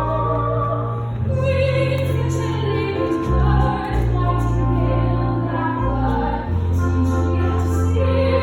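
A woman singing a slow musical-theatre song over instrumental accompaniment, with held notes and a sustained bass line that changes pitch every second or two.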